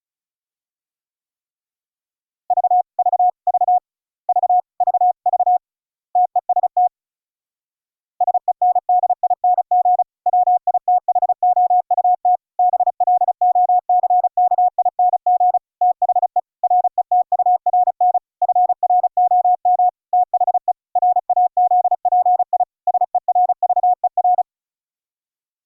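Morse code (CW) sent as a single steady audio tone, keyed on and off into dots and dashes. A few slower characters come first; after a short pause about 8 seconds in, a longer run of faster sending follows and stops near the end.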